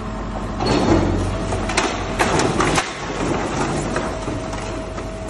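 Metal crunching and clattering as a scrapyard grab tears apart the body of a Volvo B7TL Plaxton President double-decker bus, with a steady machine whine underneath. The sharpest crashes come in the first half.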